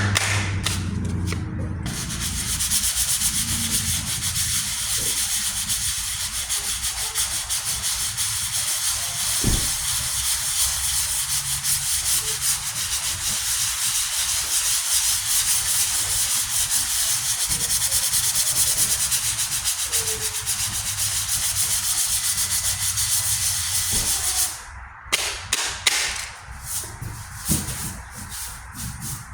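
220-grit sandpaper scrubbing steadily back and forth over a primed body-filler patch on a steel truck tailgate, taking out the sanding scratches and levelling the filler. Near the end it breaks into a few separate strokes.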